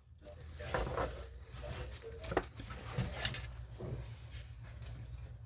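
Handling noises from the snap-button repair: scattered small clicks and taps with light rustling.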